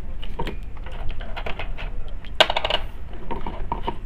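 Blue-handled hand tool clicking and tapping against an induction cooker's circuit board as a capacitor is being taken out, with one louder ringing metallic clink a little past halfway.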